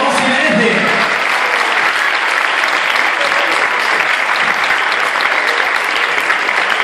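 Audience applauding steadily, a dense even clapping throughout, with some voices heard in the first second.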